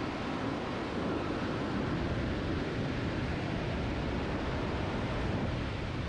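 Heavy storm surf breaking and washing up the beach, a steady roar, with wind rumbling on the microphone.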